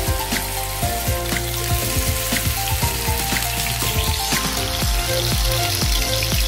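Chicken and vegetable kebabs sizzling on a hot grill pan, the sizzle growing louder about two-thirds of the way through, under background music.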